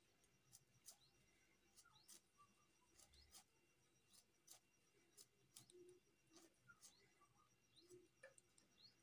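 Near silence: faint, irregular clicks and scrapes of a knife paring the skin off baby jackfruit slices, with faint bird chirps in the background.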